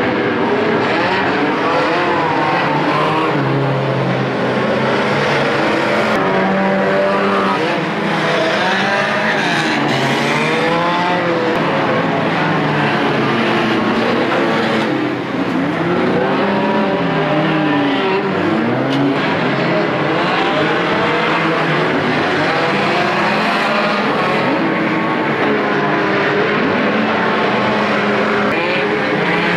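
Several banger racing cars (old saloon cars) racing round a shale oval at once, their engines revving up and down over each other in a steady din.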